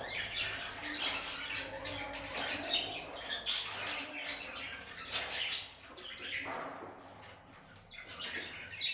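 Budgerigars chattering and warbling: a dense run of quick chirps and squawks that thins out and grows quieter for a couple of seconds past the middle.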